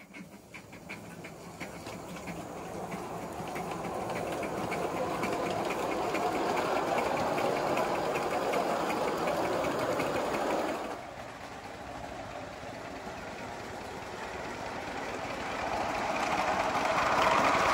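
Small 3.5-inch gauge live steam 4-6-0 locomotive pulling away, its exhaust beats quickening into a rapid, rhythmic chuffing as it gathers speed on the track. About eleven seconds in the sound drops suddenly, then the running train grows steadily louder as it approaches.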